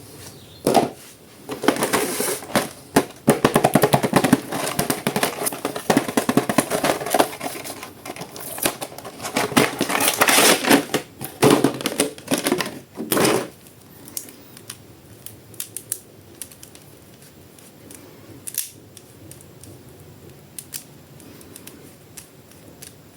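Plastic toy packaging handled and opened: rapid crackling and clicking for about the first thirteen seconds, then only scattered light clicks.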